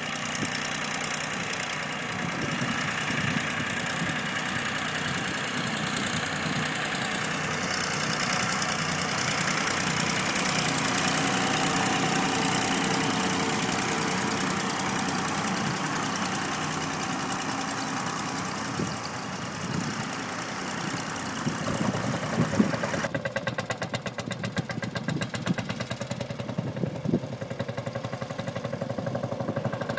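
Vintage farm tractor engines running as a line of old tractors drives past one after another. About three-quarters of the way in, one engine's rapid, even firing pulses become clearer.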